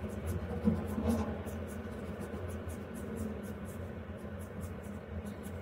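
Stylus scratching across the glass of a Huion Kamvas Pro 19 pen display in short strokes, several a second, over a steady low hum.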